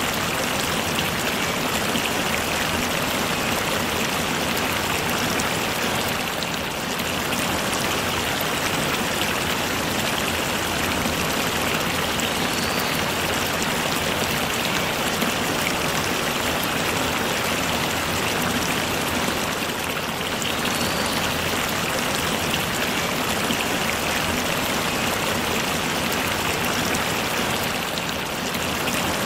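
Steady rain falling, an even noise with no pause or change.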